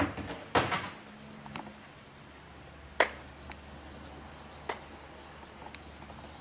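A few sharp knocks and clacks. A loud one right at the start is followed by another with a short rattle about half a second later, then a sharp one about three seconds in and a couple of lighter taps. Small birds chirp faintly in the second half.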